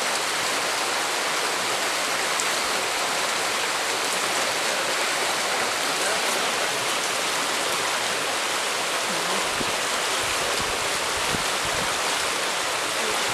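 A river rushing steadily, an unbroken hiss of flowing water.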